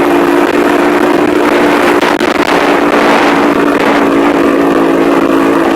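Motorcycle engine running steadily while being ridden, holding an even pitch with no revving.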